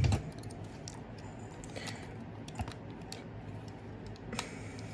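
Hard plastic parts of a Transformers Kingdom Rhinox action figure clicking and tapping as they are moved and tabbed during its transformation. A few sharp clicks, the loudest right at the start.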